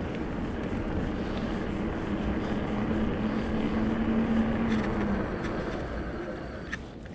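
Riding noise from a Rockrider E-ST 900 electric mountain bike on the move: steady rumble of tyres and wind on the microphone. A steady hum comes in about two seconds in and fades out about three seconds later, and there are a couple of light knocks near the end.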